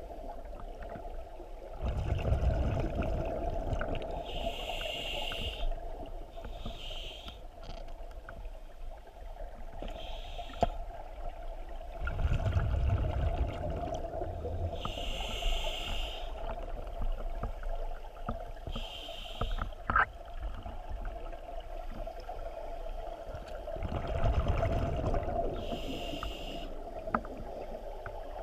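Scuba diver breathing through a regulator underwater: a hiss on each inhalation and a rushing gurgle of exhaled bubbles, about three slow breath cycles, over a steady hum.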